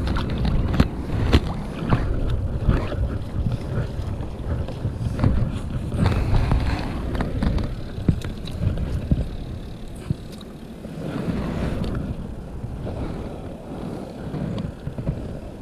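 Low rumbling on the action camera's microphone with scattered knocks and rustles from movement and gear on a sit-on kayak.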